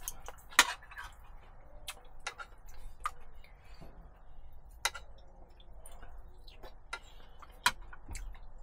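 Chopsticks clicking and tapping against ceramic rice bowls and a serving dish during a meal: irregular sharp little ticks, a second or so apart, the loudest about half a second in and again near the end.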